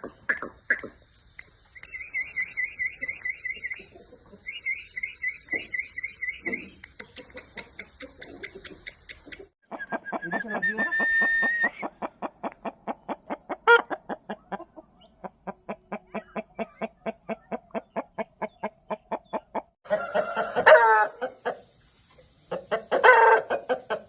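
Aseel chickens clucking in long, rapid runs of several clucks a second, with a drawn-out call and a few louder calls near the end.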